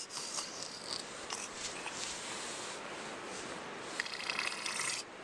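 Nylon tent fabric rustling as a baby grabs and rubs against the tent wall, with a louder, rapid scratchy rasp about four seconds in that lasts roughly a second.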